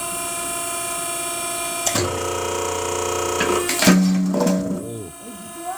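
Steady mechanical hum of a homemade hydraulic log splitter's power unit. About two seconds in, pitched, guitar-like notes sound over it for roughly three seconds.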